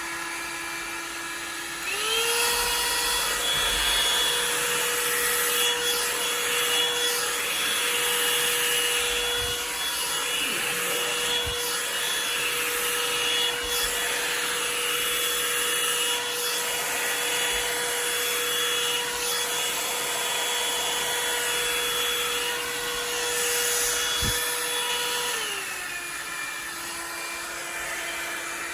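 Revlon One-Step hair dryer brush running with a steady motor whine and rush of air. About two seconds in the whine steps up in pitch and gets louder as it is switched from low to high, and a few seconds before the end it falls back to the lower pitch.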